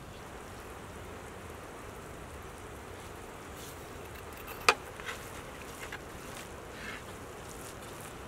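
A metal spoon clinks once, sharp and loud, against a black iron cooking pan about halfway through, followed by a few soft clicks and scrapes of utensils in the pan over a steady background hiss.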